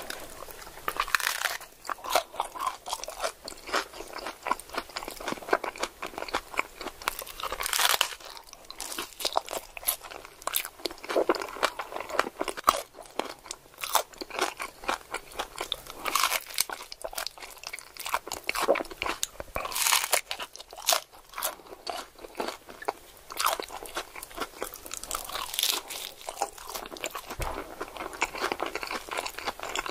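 Tacos being eaten close to the microphone: dense crackly crunching and chewing, with louder crunches every few seconds.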